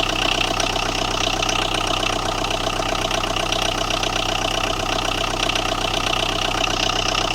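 Tata Indigo diesel engine idling steadily with a knock. The mechanic traces the knocking to a blown 10-amp ECM fuse.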